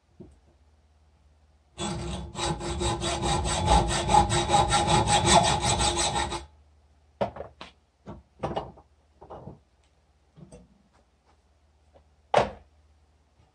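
Hand hacksaw cutting through the steel shell of an old spark plug, quick back-and-forth strokes for about four and a half seconds starting a couple of seconds in. Then stops, followed by a few short knocks and clicks, the sharpest near the end.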